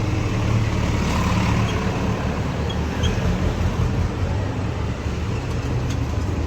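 Steady motor-vehicle noise: a running engine's low hum under an even road-traffic rumble.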